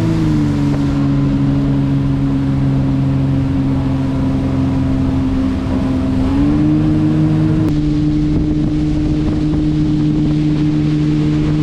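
Motorboat engine running steadily under tow load, its pitch easing down at the start and rising a step about six seconds in, with wind buffeting the microphone.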